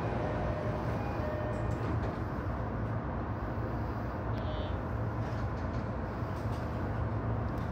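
Steady low hum and hiss of a Sotetsu 12000 series electric train standing still with its onboard equipment running, heard from the cab. A brief faint high chirp about four and a half seconds in.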